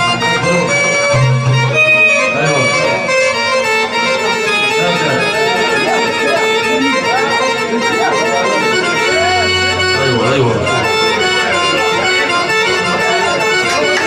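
Live electronic keyboard music: a melody played on an accordion-like voice, with held notes and short gliding ornaments over occasional low bass notes.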